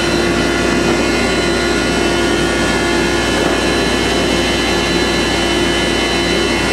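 Stationary thickness planer running steadily: a constant motor and cutterhead hum with several steady whining tones, unchanging throughout.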